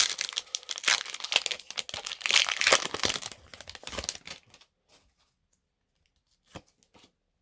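A foil Pokémon booster pack wrapper being torn open and crinkled, a dense crackling that stops after about four seconds. A single short tap follows near the end.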